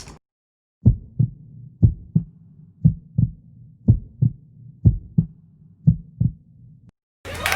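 Heartbeat sound effect: six slow double thumps (lub-dub), about one beat a second.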